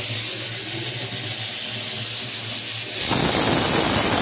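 Steady hiss with a low hum, then about three seconds in a loud, even rush of steam sets in: a pressure cooker on a gas stove venting through its whistle.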